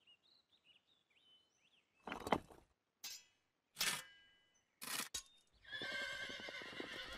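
Four short scraping and knocking sounds of a trowel and stone blocks being set in mortar, then a horse whinnying near the end.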